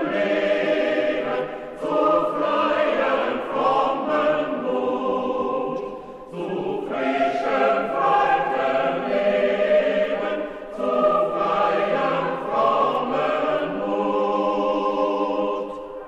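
Choir singing in held chords, phrase by phrase, with brief breaks about 2, 6 and 11 seconds in; it stops abruptly at the very end.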